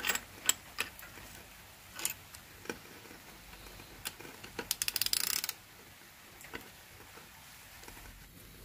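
Metal hand tools clicking on a shock absorber strut's top nut as it is undone with a 19 mm spanner while a 7 mm hex key holds the shaft. There are scattered single clinks, then a quick run of ratchet clicks about five seconds in.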